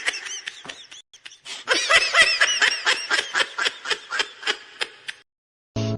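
High-pitched laughter played as a meme sound effect: a quick run of "ha" pulses, a short break, then a longer, louder run of rapid giggles that tapers off.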